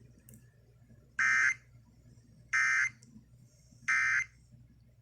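Three short, identical EAS digital data bursts, each about a third of a second long and a little over a second apart: the SAME end-of-message code that closes an Emergency Alert System activation.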